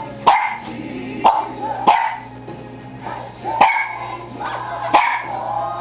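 Miniature pinscher barking shrilly: five short barks at uneven intervals, with music playing underneath.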